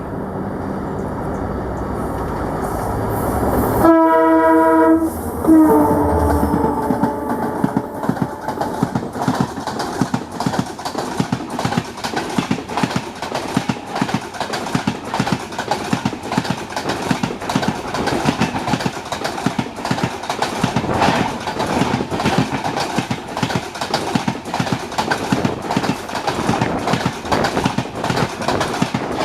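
A WDP4D diesel locomotive approaching, its engine growing louder, then sounding its horn twice: a short blast and a longer one that drops slightly in pitch as it passes. The train's coaches then run by, wheels clattering rhythmically over the rail joints.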